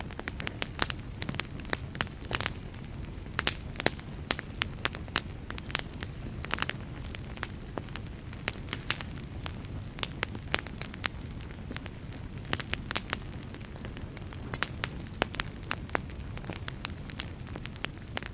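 Wood fire crackling, with frequent irregular sharp pops over a steady low rumble.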